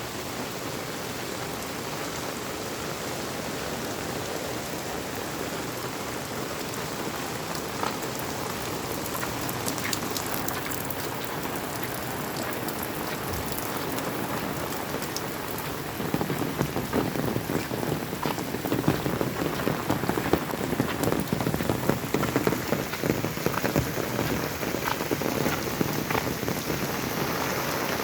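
Steady rain falling, an even hiss with the patter of individual drops; about halfway through it gets louder, with a heavier, closer patter of drops.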